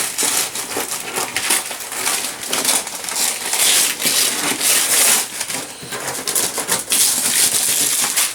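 Gift wrapping paper being torn and crumpled off a present, a continuous ripping and rustling that swells and eases.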